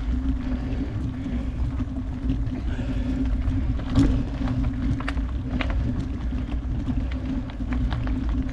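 Mountain bike ridden on a dirt trail: a steady low rumble with scattered sharp clicks and knocks, the loudest about four seconds in.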